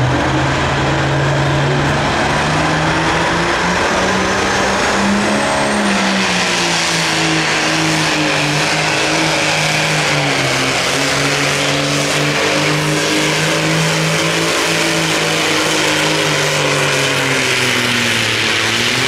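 John Deere 4430 Classic Super Stock pulling tractor's turbocharged diesel engine running hard under full load as it pulls the sled down the track. The engine note holds loud and steady, wavering slightly in pitch, and sags near the end.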